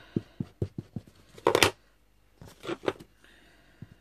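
A few light knocks on a tabletop, then a loud, brief rustle of stiff painted card being picked up and handled, with two smaller rustles about a second later.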